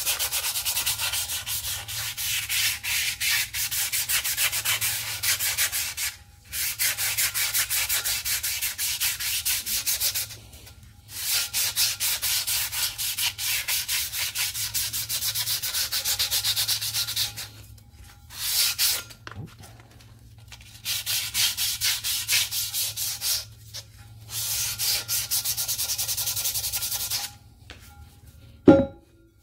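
150-grit emery cloth rubbed by hand around the inside of a Land Rover Defender's park brake drum: a fast scrubbing hiss in long runs with several short pauses, roughing the braking surface so the new shoes bed in and grip. A single sharp knock near the end.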